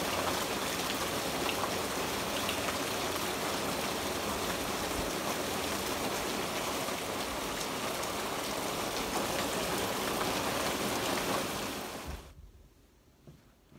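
Heavy rain coming down hard, a loud, dense, steady hiss of drops. It cuts off suddenly about twelve seconds in.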